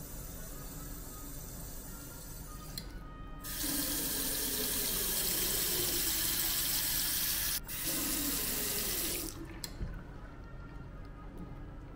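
Single-lever mixer tap running into a ceramic washbasin. A thin stream is turned up to a fuller, louder flow about three and a half seconds in, then shut off about two-thirds of the way through, followed by a light click.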